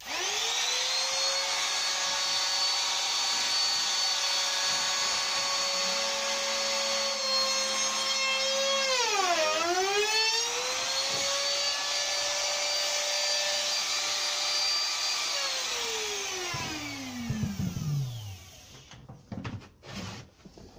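Makita trim router with a finger-pull cutter switching on and spinning up to a steady high whine. About nine seconds in its pitch dips sharply as the cutter bites into the beech door stile, then recovers. Near the end it is switched off and winds down with a falling whine, followed by a few light knocks.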